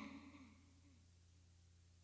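Near silence with a faint steady low hum; the tail of a brief sound just before fades out in the first half second.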